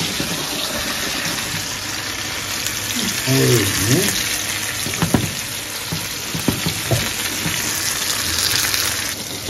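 Beef burger patties sizzling in a frying pan, with a few short knocks around the middle.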